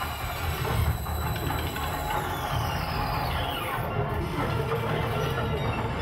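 Electronic noise soundtrack of an audiovisual art piece: a dense low rumble under a haze of high hiss and steady high tones. About two seconds in, a cluster of high tones glides slowly downward over a second or two.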